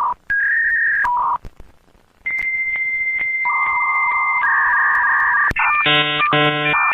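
A sequence of electronic beep tones, some single and some two tones together like telephone dialing tones, switching on and off abruptly. Near the end come two short harsh buzzes, and it leads into a burst of static hiss.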